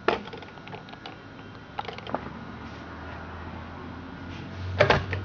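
Scattered clicks and knocks of hard equipment being handled, loudest in a quick cluster near the end, over a low steady hum.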